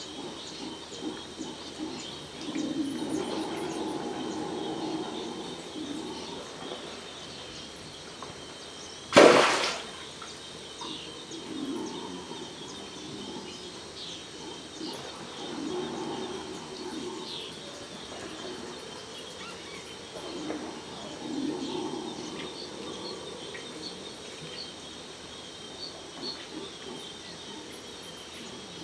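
Amazon floodplain forest dawn chorus: a steady high chirring of birds and insects with scattered bird chirps, under low distant calls that swell and fade every few seconds, the roaring of red howler monkeys waking. One sudden loud burst of noise cuts through about nine seconds in.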